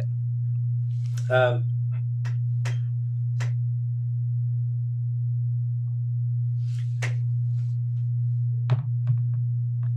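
A steady low electrical hum, with a short voice sound about a second in and a few faint clicks.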